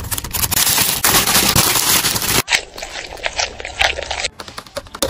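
Paper wrapper of a McDonald's chicken sandwich crinkling and crackling as it is handled and opened: a dense run of sharp crinkles that changes abruptly about halfway through.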